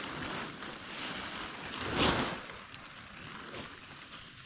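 Rain and wind noise in a forest, with a louder rush about two seconds in.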